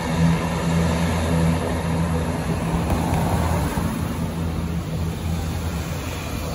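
Twin turboprop engines and propellers of an ATR 72 airliner running at low power as it rolls along the runway after landing: a steady drone with a low hum, easing off slightly in the second half.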